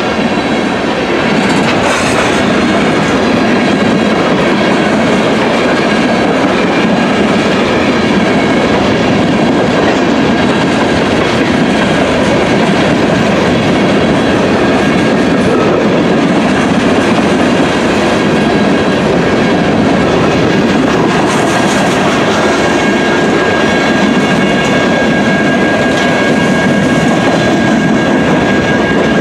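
Loaded coal train's hopper cars rolling past, their steel wheels running on the rails in a steady, loud rumble, with a thin steady high ring above it.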